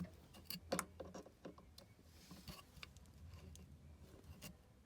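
Faint scattered clicks and light rubbing of a battery charger's cord and plug being handled, with a faint low hum underneath.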